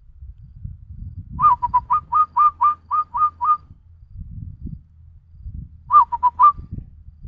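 A person whistling an imitation of a zebra dove's (perkutut) cooing call: a quick run of about ten short hooked notes, then a shorter run of four about six seconds in.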